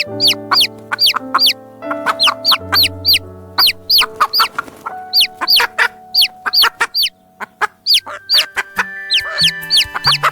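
Domestic chicks peeping: a rapid run of loud, high calls, each falling sharply in pitch, two or three a second, over background music with held notes.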